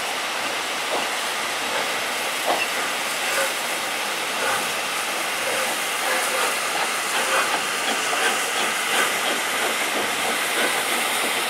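Steam locomotive (LNER A4 Pacific 'Bittern') hissing steam steadily as it moves slowly, with scattered light clanks and knocks, more of them in the second half.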